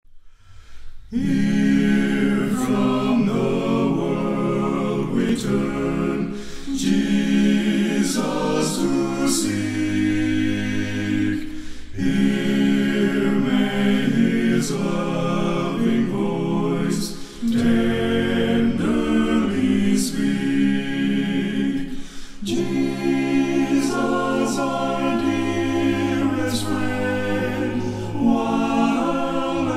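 A cappella vocal group singing in harmony, several voices with a low bass part beneath; the singing begins about a second in.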